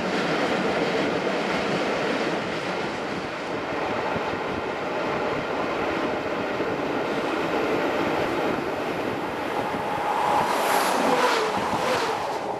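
Passenger train running at speed, heard from an open coach window: a steady rush of wind and wheels on rail. Near the end it grows louder as a train on the other line passes close alongside.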